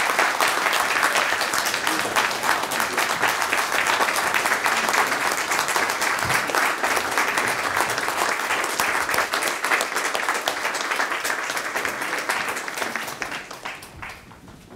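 Audience applauding: many hands clapping steadily, dying away about a second before the end.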